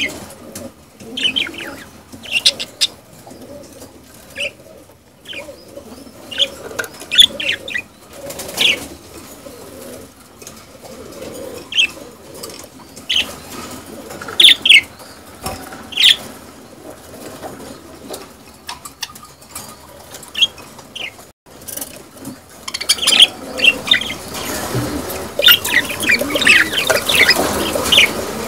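A group of budgerigars chattering and warbling courtship calls, with sharp high chirps scattered through and a busier burst of chirping near the end.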